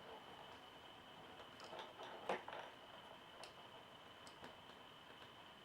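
Near silence with a faint steady high-pitched whine and a few soft, scattered clicks from small-parts soldering work.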